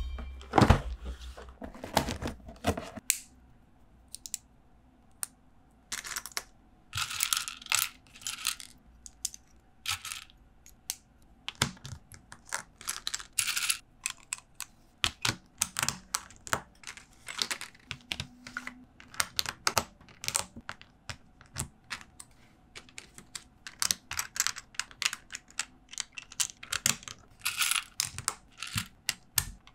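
LEGO plastic bricks and plates clicking, rattling and snapping together on a hard tabletop as pieces are picked up, sorted and pressed into place. The clicks come irregularly, with heavier knocks in the first few seconds and a few brief clusters of rattling.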